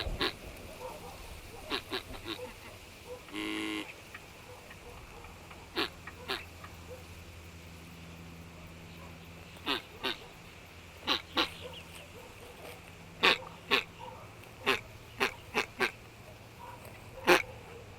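Ducks quacking: short, sharp quacks at irregular intervals, some in quick pairs, with one longer drawn-out call about three seconds in.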